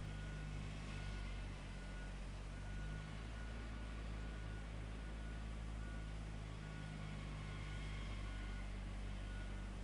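Low, steady engine hum of heavy construction machinery, with a faint high reversing beeper sounding on and off about once a second.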